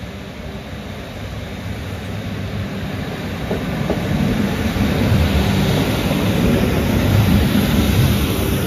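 Northern Class 156 two-car diesel multiple unit pulling out of the station and passing close by, its diesel engines and wheels on the rails growing steadily louder as it nears.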